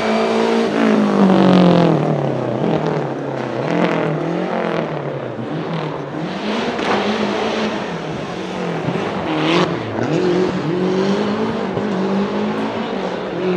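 Lancia Delta HF Integrale Group A rally car's turbocharged four-cylinder engine revving hard and falling back again and again through gear changes and lifts off the throttle, with a sharp crack about two-thirds of the way through.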